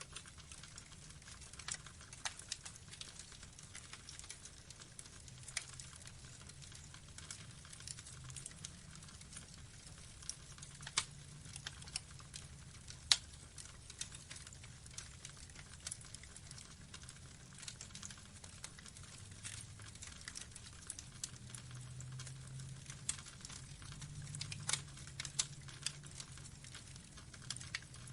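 Burning wood logs crackling, with irregular sharp pops and snaps at uneven intervals over a faint low rumble of the fire. One pop about halfway through is the loudest, and the snaps bunch together near the end.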